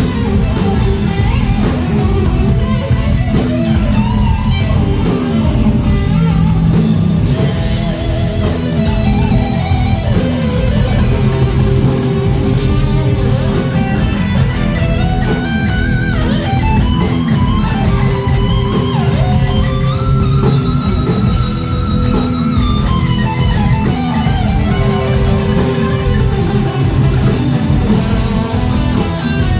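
Rock band playing an instrumental passage: electric guitar playing melodic lines that climb and fall over bass and drums, with no singing.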